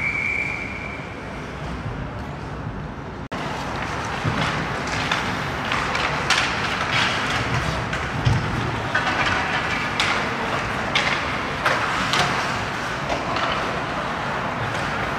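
Ice hockey play in a rink: skates scraping the ice, with repeated sharp clacks of sticks and puck from a few seconds in. A steady high whistle tone, typical of a referee's whistle, ends within the first second.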